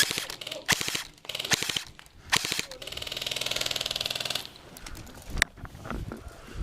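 Airsoft guns firing: a quick rattle of shots at the start, a few separate sharp cracks, then a sustained full-auto burst of fast mechanical clacks lasting about a second and a half, starting about three seconds in.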